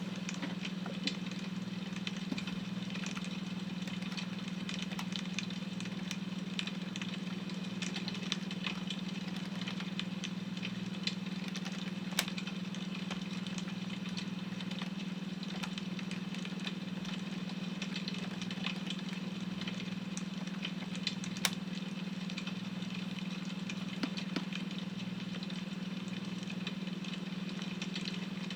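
Crackling wood fire with small continual crackles and occasional sharper pops, over a steady low hum tone from a beta-wave brainwave track.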